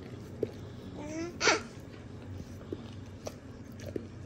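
A baby's short babbling squeal about a second in, rising in pitch, with a few faint clicks around it.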